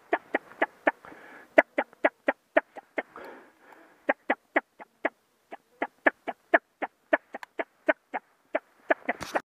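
Rapid, evenly repeated duck quacking calls, about four a second, with a rush of wings passing twice as scoters fly in low over the decoys. A brief rough thump comes near the end.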